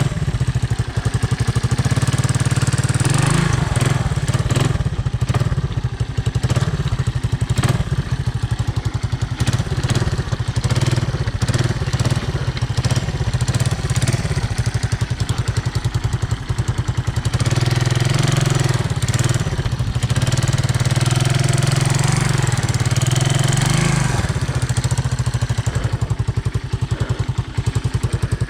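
Honda ATC 200M three-wheeler's single-cylinder four-stroke engine running under riding load. It pulls harder for several seconds just past the middle, then eases off.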